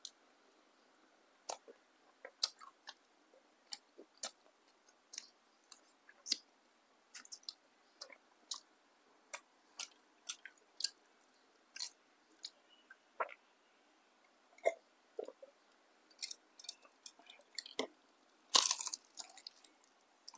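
Close-up mouth sounds of a person eating fried tempeh fritters: scattered wet clicks and crisp crunches as the fried batter is chewed, with a louder crunching bite about a second long near the end.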